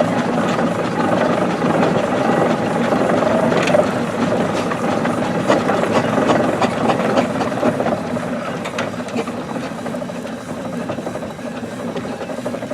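An engine running steadily, with scattered light clicks and rattles over it.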